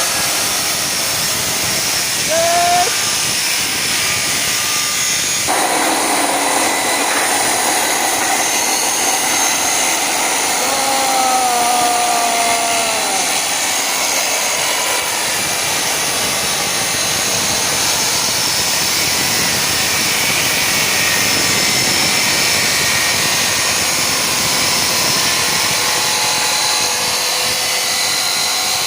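Steady hissing noise of metalworking tools, with a few short squealing glides in pitch around three and eleven seconds in. The sound changes abruptly about five seconds in.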